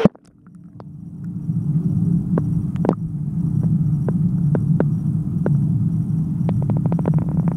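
Sound picked up underwater in a dog swimming pool: a steady low hum that swells over the first second or so. Sharp clicks and taps are scattered through it, with a quick run of them near the end.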